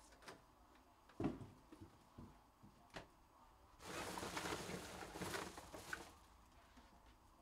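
Faint handling noises: a few light knocks, the sharpest about a second in, then about two seconds of rustling.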